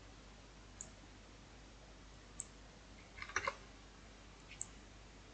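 A few faint, scattered computer mouse clicks over low room hiss, with a quick group of clicks about three and a half seconds in.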